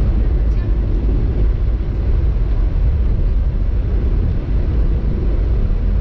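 Car driving at steady speed, heard from inside the cabin: a continuous low rumble of engine and tyres on the road.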